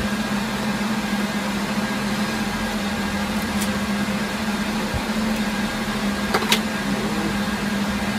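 Rack-mounted servers and network switches running, their cooling fans giving a steady hum with an even hiss. Two short clicks come about six and a half seconds in.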